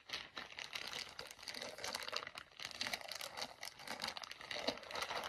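Clear plastic polybag crinkling as it is handled and turned, a continuous run of quick rustles and crackles.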